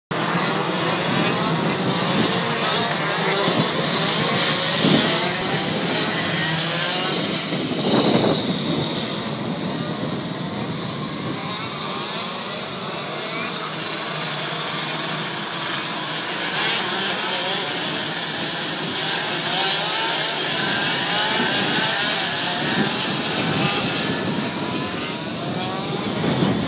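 A field of racing go-kart engines revving hard, many at once, their pitch rising and falling as the karts accelerate, brake and pass. The sound swells loudest about 5 and 8 seconds in.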